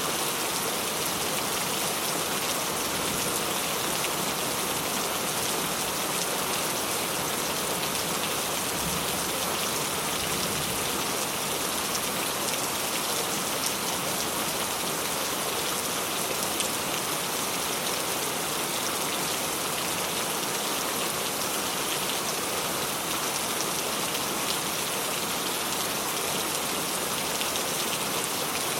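Steady rain falling: an even hiss of many drops with a fine, scattered patter, unchanging throughout.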